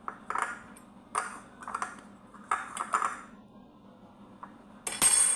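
Kitchen clatter of dishes and utensils: a string of short clinks and knocks over the first three seconds, then a louder, harsher clatter near the end.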